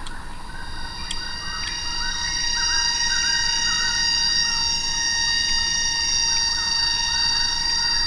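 Forest insect chorus: several steady, high-pitched drones held at different pitches, over busy chirping calls lower down, with a few faint clicks.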